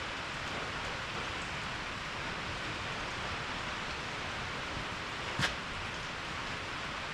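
Steady rain hiss, with one sharp click about five seconds in.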